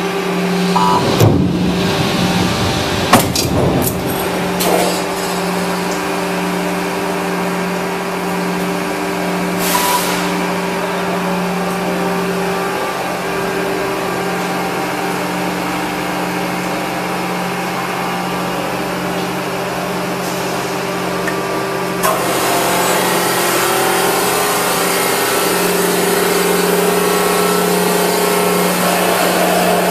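Machinery of an 800-ton stamping press running with a steady hum during an automatic die change. Several sharp clunks come in the first few seconds, a short hiss about ten seconds in, and a louder hiss from about two-thirds of the way through.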